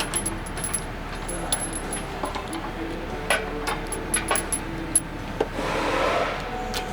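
Lifting chain jangling and clinking against metal as it is handled, with a few sharper metal taps, over a steady hum. A short rush of noise comes near the end.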